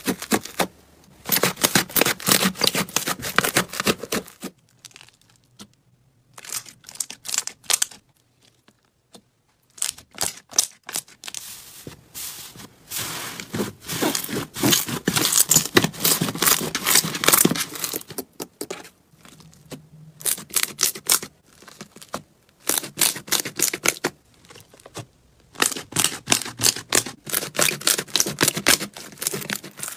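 Slime being squeezed, stretched and poked by hand, giving dense sticky crackles and pops in bursts of a few seconds, with short quiet pauses between.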